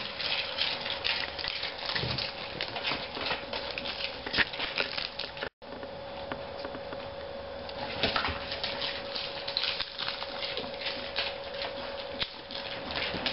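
A Jack Russell terrier chewing crisp lettuce leaves: a rapid, uneven run of wet crunches and clicks.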